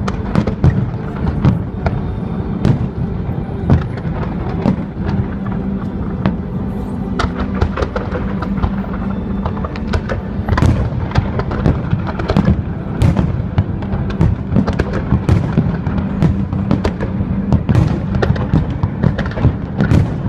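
Fireworks display: a continuous barrage of shell bursts and crackling bangs, several a second, with bigger bursts scattered through it.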